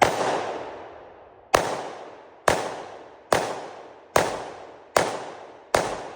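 Glock 20 pistol in 10mm Auto fired seven times in steady succession, a shot roughly every second. Each report is sharp and trails off in a long fading echo.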